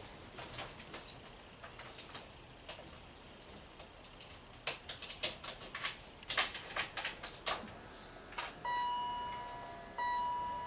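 Keys jangling and small clicks, then, about eight and a half seconds in, the BMW X5's in-cabin warning chime sounding twice in steady, ringing tones about a second long.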